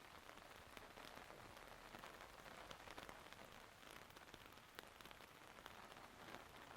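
Faint, steady rain falling, with many individual drops ticking close by.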